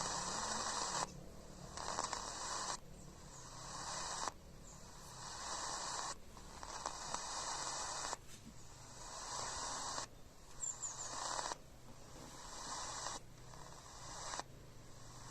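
Radio receiver putting out static hiss with no station, the noise jumping abruptly between louder and quieter blocks every one to two seconds as the receiver changes frequency.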